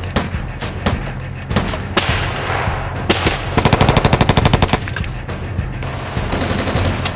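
Rapid gunfire: short automatic bursts and single shots, with a fast burst of about ten shots a second near the middle.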